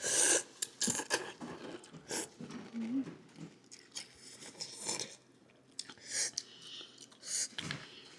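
Close-up crunching and chewing of a Flamin' Hot Cheeto. There is a sharp crunch right at the start, then irregular smaller crisp crunches with short pauses between bites.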